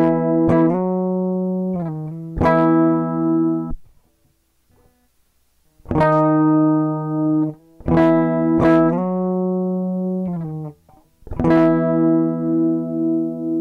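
A guitar plays a slow lead melody: long, sustained single notes with vibrato. There is a pause of about two seconds partway through, before the phrase resumes.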